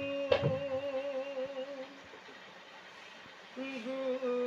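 A singer holds a long, slightly wavering bhajan note. A hand stroke on a large barrel drum lands just after the start. The voice fades out about two seconds in, and a new held note begins near the end.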